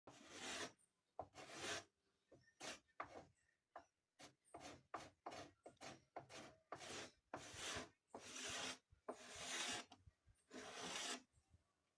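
Knife blade shaving the edge of a wooden door, about twenty scraping strokes at an uneven pace, some quick and short, a few longer and drawn out toward the end.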